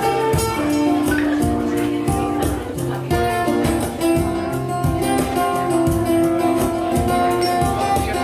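Music: guitar playing over a steady beat.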